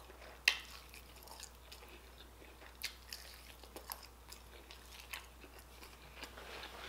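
A person chewing a bite of Hot Cheeto-crusted fried chicken, with scattered crisp crackles from the crust. The loudest crackle comes about half a second in.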